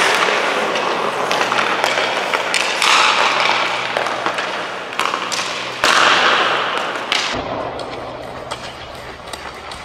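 Hockey skate blades carving and scraping on ice, in hissing bursts that swell about 3 and 6 seconds in, with a few sharp knocks over a steady low rink hum; it drops quieter near the end.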